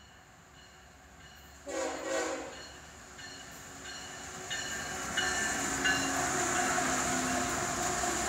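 Freight train's GE diesel locomotives approaching and passing close by. A short horn blast comes about two seconds in, then engine and rail noise grows louder as the locomotives come alongside. A bell rings about twice a second throughout.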